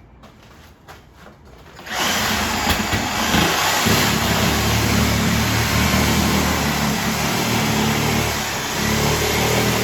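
A Sawzall reciprocating saw starts up about two seconds in and runs steadily, cutting through half-inch drywall.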